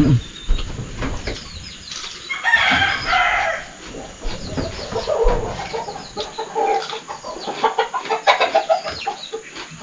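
A rooster crows once, about a second long, some two and a half seconds in, with other short bird calls around it.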